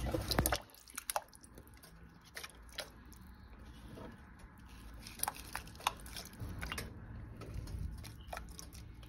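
Celery sticks dropped by hand into a pot of water with raw chicken pieces: soft wet plops and squishy handling, with scattered small knocks against the pot and a brief louder clatter right at the start.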